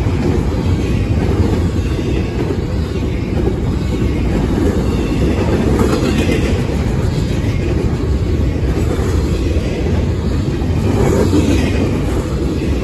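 Double-stack intermodal container cars rolling past at speed on steel wheels and rail, a steady heavy rumble that does not let up.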